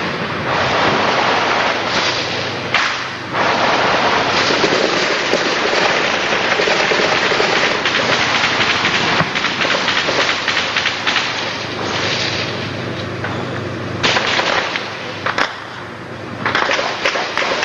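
Heavy, continuous automatic small-arms fire: many overlapping bursts crackling almost without a break, easing off for a couple of seconds near the end and then picking up again.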